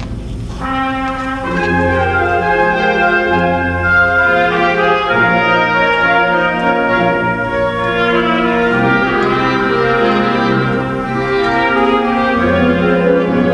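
Wind band playing, brass to the fore, with held chords over low bass notes that change every second or two.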